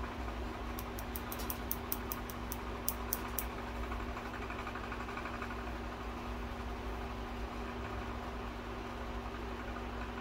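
Steady mechanical hum with a constant low tone. About a second in, a quick run of about a dozen faint, sharp ticks lasts roughly two and a half seconds.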